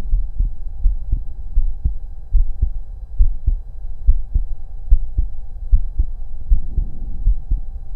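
A person's own heartbeat heard through a stethoscope: steady lub-dub pairs of low thumps, a little over one beat a second, over a faint steady hum.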